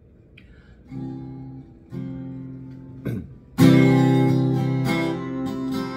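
Acoustic guitar: two soft chords about one and two seconds in, then a loud strummed chord about three and a half seconds in that rings on under further strums.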